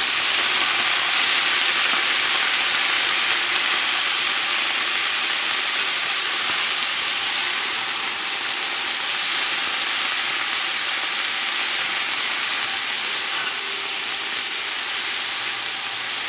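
Chopped pak choi and onion sizzling as they are sautéed in a pot and stirred with a metal spoon: a steady frying hiss that eases off slightly toward the end.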